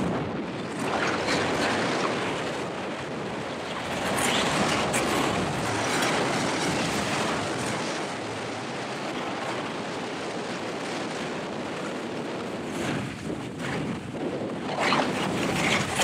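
Wind rushing over the microphone, mixed with the hiss and scrape of snowboards sliding and carving on grainy spring snow. It is a steady noisy rush that swells and eases as the riders speed up and turn.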